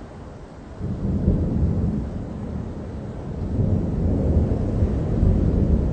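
Rolling thunder: a low rumble that starts suddenly about a second in, eases briefly, then swells a second time, over a steady background hiss.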